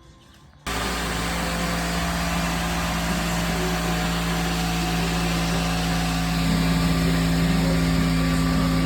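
A small engine running steadily at a constant speed, cutting in suddenly about a second in, with a steady hum over a noisy rattle.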